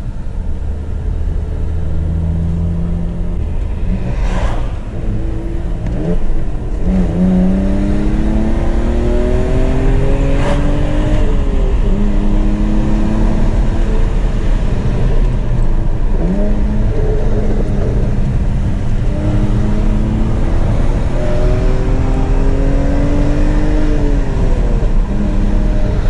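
BMW E46 320ci's M54B22 2.2-litre straight-six, with its catalytic converters removed, heard from inside the cabin while driving. It accelerates in several pulls: the engine note climbs steadily, then drops back before the next pull.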